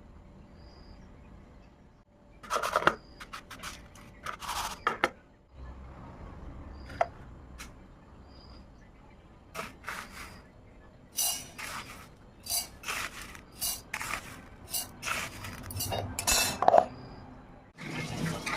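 Metal kitchen utensils clinking and scraping against steel cookware in short, scattered spells, the handling of rice while it is prepared for grinding.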